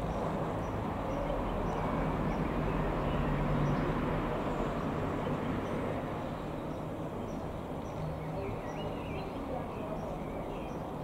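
Airbus A400M Atlas in flight: the drone of its four turboprop engines and propellers, with a steady low hum, swelling to its loudest about four seconds in and then easing off slightly.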